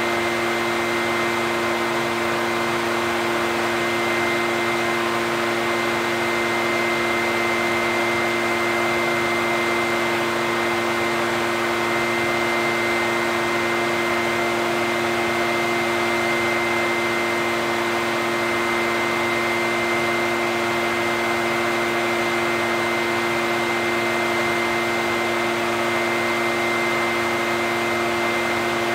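Echo backpack leaf blower's two-stroke engine running steadily, a constant rushing drone that holds at one speed with no revving.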